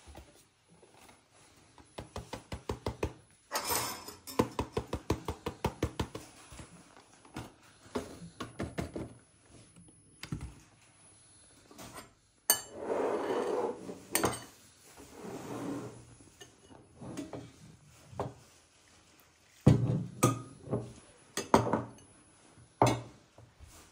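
Cornstarch shaken out of its paper-lined box into a ceramic bowl, a fast run of taps and rustles. Then a short pour of milk, and a metal spoon knocking and scraping against the bowl as the starch is stirred, with several sharp clinks near the end.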